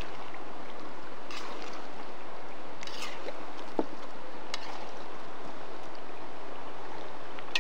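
A river rushing steadily, with a few light clicks and knocks over it and a brief rising squeak a little after the middle.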